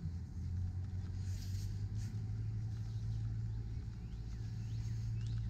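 A steady low rumble, with a few faint short bird chirps near the end.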